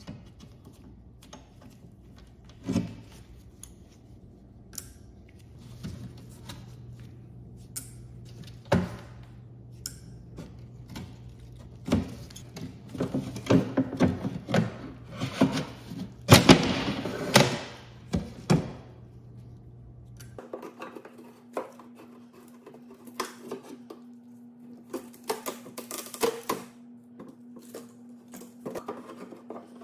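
Hand tools working old wood: steel end-cutting nippers grip and pull small nails from a desk's wooden bottom panel, and a pry tool works the thin panel loose. The result is a run of sharp clicks, knocks, scrapes and wood creaks, busiest and loudest in a dense cluster around the middle. Later the clicks grow sparser over a faint steady hum.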